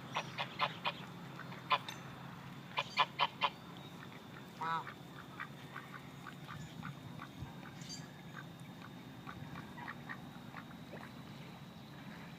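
Chinese geese honking in quick runs of loud, short calls, about five in the first second and four more around three seconds in, with a longer call near five seconds. Fainter, softer duck quacks go on through the rest.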